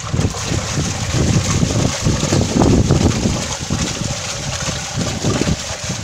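Bosch Classixx 6 front-loading washing machine drum turning on a rinse-and-spin cycle, with water sloshing and a whole pineapple tumbling inside, giving irregular low thumps.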